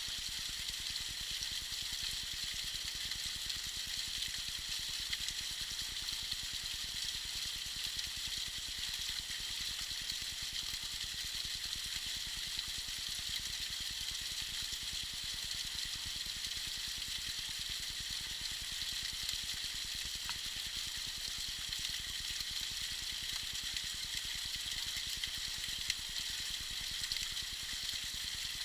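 Small waterfall splashing steadily, giving an even, high-pitched hiss of falling water.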